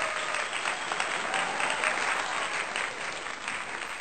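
Applause from a large crowd, dense continuous clapping that eases off slightly near the end.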